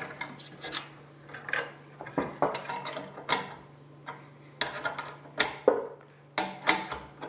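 A ratchet wrench clicking as it works the clamping bolts of a sheet-metal bending brake, with irregular sharp metallic clinks and clanks of steel tools and bars being handled. A steady low hum runs underneath.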